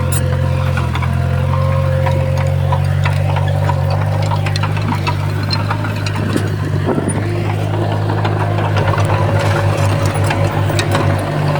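Bulldozer diesel engine running steadily under work, with scattered clanks and knocks. From about nine seconds in, the engine note takes on a rapid pulsing.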